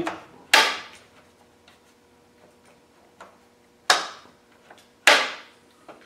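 Land Rover Defender rear door lock mechanism clacking as it is worked by hand: three sharp clacks, about half a second in, about four seconds in and about five seconds in, with fainter ticks between. The lock is faulty, which the owner suspects is a spring come off inside.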